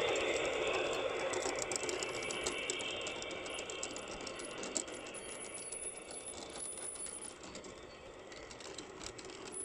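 Wheels of garden-railway model freight cars clicking along the track as the train rolls past, over a light rolling noise, the clicks thinning and the sound fading as the cars move away.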